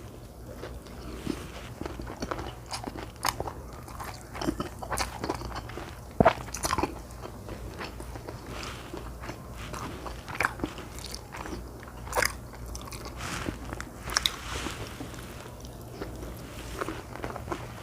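A person eating with the microphone close: irregular wet chewing, mouth clicks and small crunches, over a faint steady low hum.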